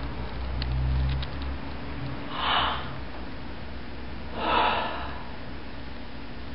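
A woman's two sharp, noisy gasping breaths, about two and a half and four and a half seconds in, the breathing of someone in shocked distress. A low rumble is heard about a second in.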